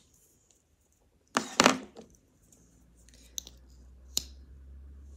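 Close handling noise of a mascara tube and wand being worked between coats: a loud short rustle about a second and a half in, then two sharp clicks. A low hum comes in about halfway through.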